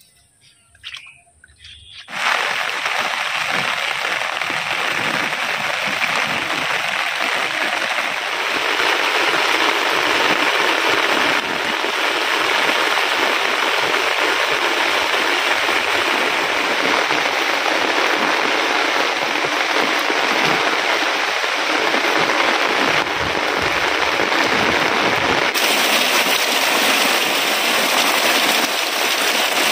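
Heavy rain pouring down steadily. It starts abruptly about two seconds in, after a brief quiet moment.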